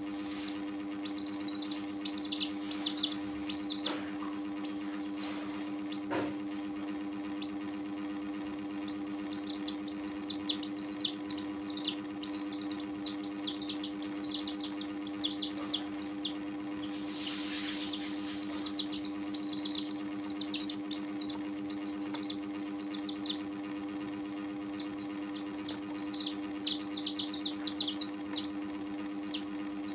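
A few baby chicks peeping almost nonstop: rapid high chirps that each fall in pitch, over a steady low hum.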